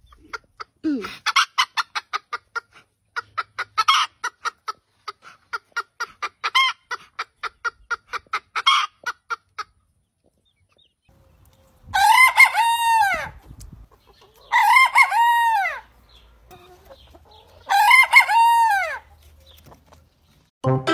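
A chicken clucking in a quick, even run of about four clucks a second for some eight seconds. After a short pause, a rooster crows three times, each crow rising and then falling in pitch.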